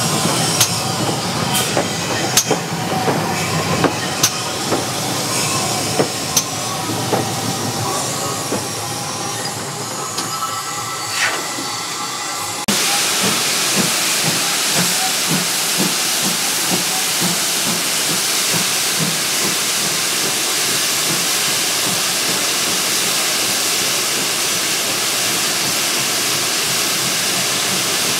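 GWR Manor class 4-6-0 steam locomotive standing and simmering, with occasional clicks and knocks. About halfway through, a loud steady hiss of steam starts suddenly and keeps on: its safety valves blowing off.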